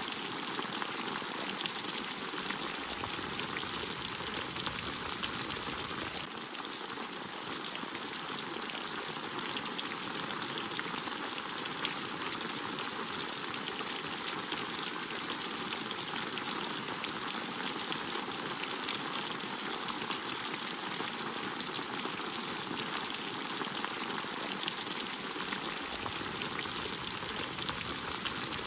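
Steady rain falling, a dense even hiss with fine close drip ticks through it. The sound shifts abruptly, slightly quieter, about six seconds in.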